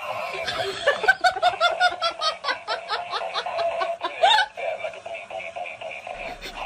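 A person laughing hard: a quick run of 'ha' bursts, about four a second, lasting about three seconds and breaking off with a rising squeal, over electronic music.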